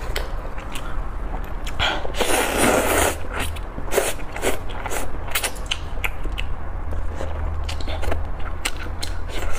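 Close-miked eating of spicy instant noodles: a long slurp of noodles about two seconds in, then chewing with many wet mouth clicks and smacks.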